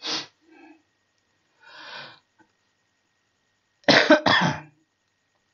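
A person coughing: a short cough at the start, a softer throat sound around two seconds in, then two hard coughs in quick succession about four seconds in.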